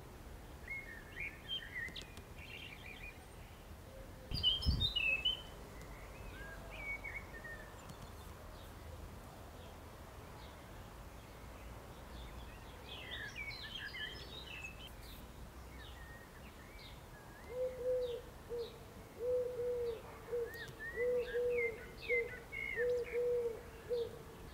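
Songbirds singing and chirping in short, high phrases, with a pigeon cooing in a repeated series of low notes through the last six seconds or so. A brief loud burst with a low thump comes about four and a half seconds in.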